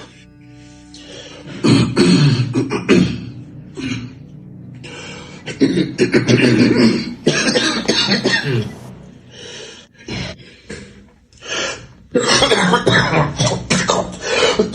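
A man coughing hard in several fits, as if struggling for breath.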